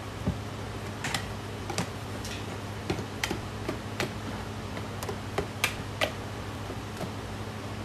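Wire whisk clicking and tapping against the side of a bowl as a thick batter is whisked by hand: irregular sharp clicks, one or two a second, over a steady low hum.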